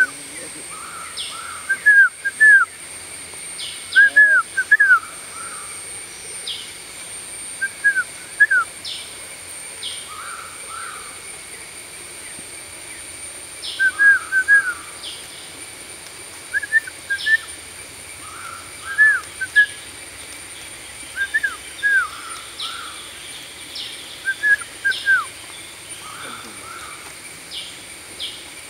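Blue-winged pitta calling: short, clear whistled notes in pairs and threes, repeated every couple of seconds.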